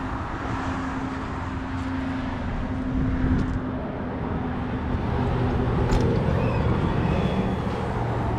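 Road traffic: vehicle engines running steadily over tyre and road noise, with a deeper engine hum taking over about five seconds in.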